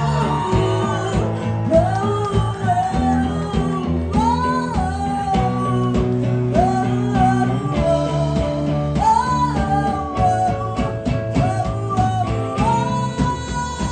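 Live band music: a woman singing lead, with long held and bending notes, over strummed acoustic guitar and a band backing.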